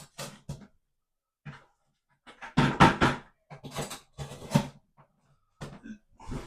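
Irregular knocking and scraping from hand work around an old, rusted toilet flange, in a series of short, uneven strokes that are loudest in the middle.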